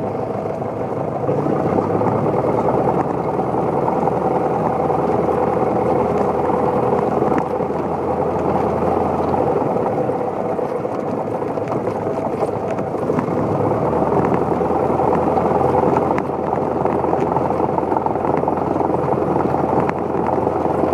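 A car being driven, its engine and tyre noise making a steady drone that shifts slightly a couple of times.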